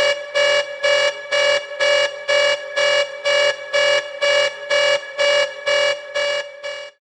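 A buzzer pitched up into a high red-alert spaceship alarm, pulsing with an even buzzing tone about twice a second. It cuts off suddenly near the end.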